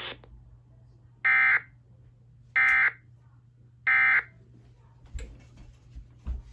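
EAS SAME end-of-message code: three short, identical raspy digital data bursts about a second apart, marking the end of the relayed alert. A few faint clicks follow near the end.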